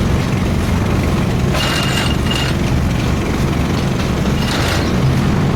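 Engine of construction machinery running steadily with a low drone, with two brief higher-pitched noises, about one and a half and four and a half seconds in.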